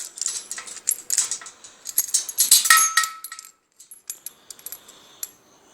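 Metal clinks and rattles of a just-opened padlock and its keys being handled: a run of sharp clicks and ringing chinks, busiest in the first three seconds and sparser after.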